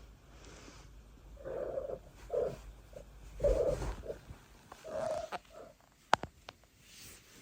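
A cat making a series of about five short, low sounds over a few seconds, followed by one sharp click.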